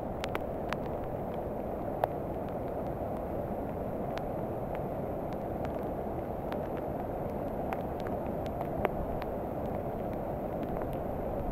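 Muddy floodwater pouring off a railway bridge and down the walls into a flooded underpass: a steady rushing, with scattered sharp ticks and splashes.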